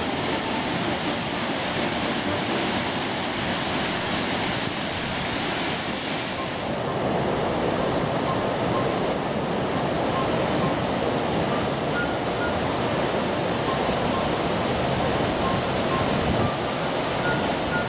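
Steady rushing of a waterfall and the stream in its rocky gorge. About six seconds in, the sound turns deeper and less hissy.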